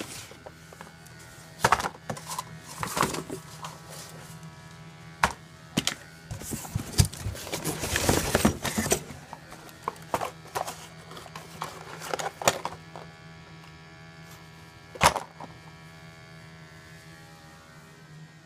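Handling noises: sharp knocks and clatter of tools and a cardboard parts box, with a spell of rustling packaging about halfway through, over a steady low hum.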